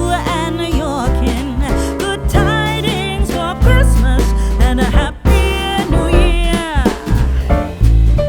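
Background pop music with a sung melody over bass and a steady beat.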